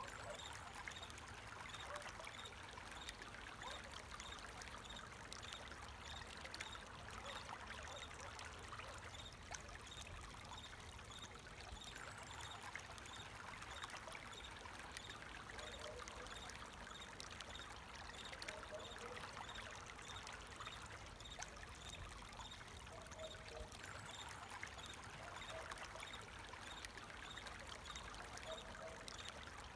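Running water flowing and trickling steadily, with crickets chirping in an even, repeating rhythm over it.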